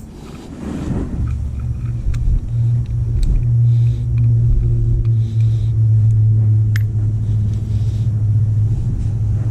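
A steady low motor hum over a rumbling noise, starting about a second in, with a few faint clicks.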